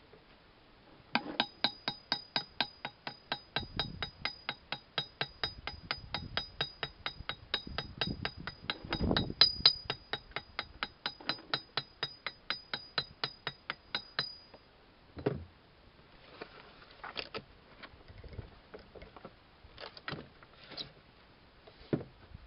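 Wilton vise parts clicking against metal as the vise is assembled: an even run of sharp, ringing metallic clicks, about four a second, lasting some thirteen seconds. After that come a few scattered knocks and clinks.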